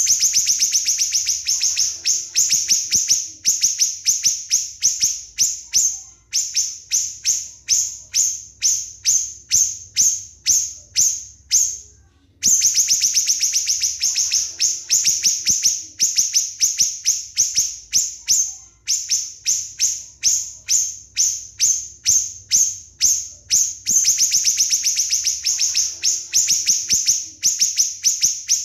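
Small songbirds giving a rapid-fire series of sharp, high chirps, about three to four a second, that run together into quick trills in places. The calls break off briefly about halfway through, then start again loudly: the machine-gun 'nembak' call used as masteran training song.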